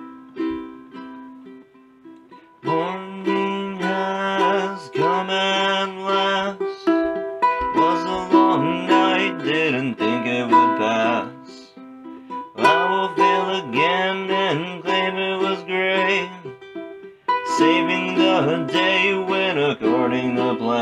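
Ukulele playing: separate plucked notes at first, then strummed chords from about three seconds in, in phrases with short breaks between them.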